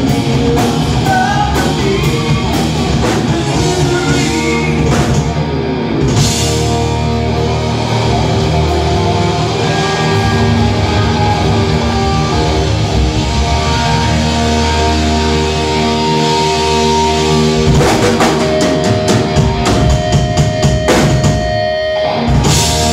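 Live rock band playing electric guitars and a drum kit, with a fast run of drum and cymbal hits in the last few seconds.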